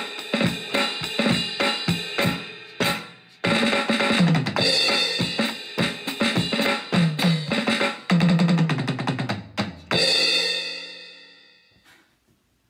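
Fast drum-kit beat of bass drum, snare and crashing cymbals, ending on a final cymbal crash that rings out and dies away over the last couple of seconds.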